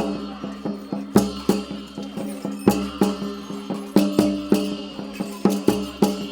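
Traditional Nepali folk music for a sword-and-shield dance: steady drum strokes, with a heavier beat roughly every one and a half seconds, over a held low tone.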